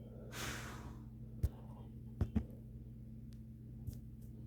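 Steady low hum of a desktop computer running while it boots, with a short breathy hiss about half a second in and a few soft knocks in the middle.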